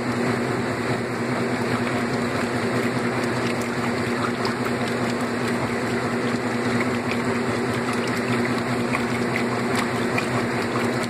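1970s- or 80s-era Maytag top-load washing machine running steadily, its motor humming with water moving in the tub, typical of the pump draining the tub.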